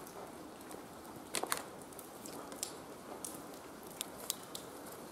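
Footsteps over wet, muddy ground littered with debris, with scattered sharp crackles and snaps, the loudest a quick pair about a second and a half in, over a steady hiss.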